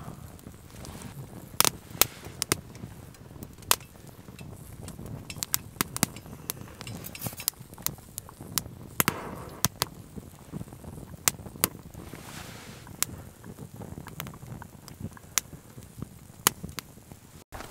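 Wood fire crackling in a Firebox folding stove, with sharp irregular pops and snaps.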